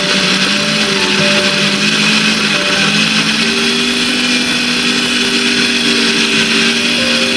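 Misu smart blender with a stainless steel jar running at speed, grinding frozen chicken into mince. It is a loud, steady motor whine whose pitch rises slightly about three seconds in.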